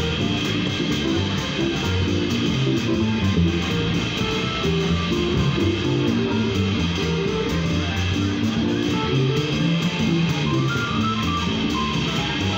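Small jazz combo playing live: a plucked upright double bass walking through one low note after another, a drum kit keeping time with regular cymbal strokes, and an electric keyboard comping above.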